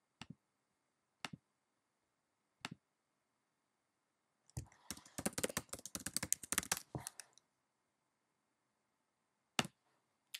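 A few single clicks, then a quick run of keystrokes on a computer keyboard for about three seconds as a password is typed, then one more click near the end.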